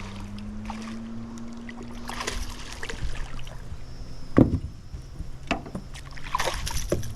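A boat's motor humming steadily at a low pitch, with a few sharp knocks near the middle and end.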